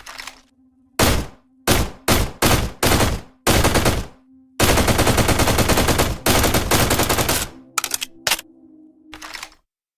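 M2 carbine, a select-fire .30 Carbine rifle, firing. It fires a few single shots and short bursts, then two long full-automatic bursts in the middle, then scattered single shots near the end.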